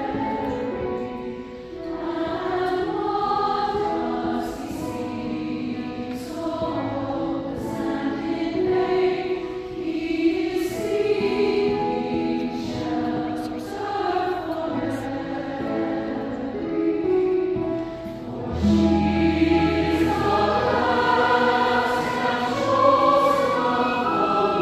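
Mixed choir singing a Christmas carol, with the sibilant hiss of sung consonants. About three-quarters of the way through, a low sustained bass note comes in under the voices and holds for about three seconds.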